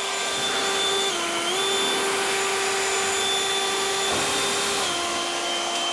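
Greenworks 80V cordless jet leaf blower running flat out on turbo: a steady high motor whine over a rush of air. The pitch dips briefly about a second in and steps down a little near five seconds, around when the blower's cone nozzle blows off the end of the tube.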